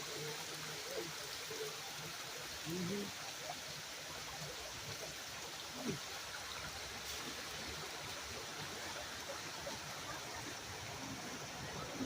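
Stream water running steadily over rocks: an even, unbroken rush.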